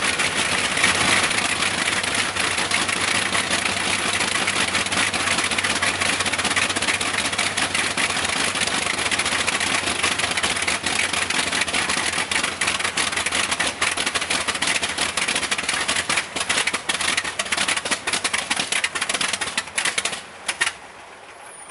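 An old engine running with a fast, dense clatter of rapid clicks. It turns uneven near the end and cuts out about twenty seconds in.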